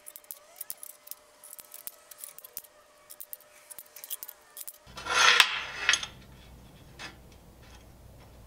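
Steel bars clinking and sliding against each other and on a steel welding table as they are laid side by side. There are scattered light clicks, then a louder clatter about five seconds in, followed by a couple of sharp clicks.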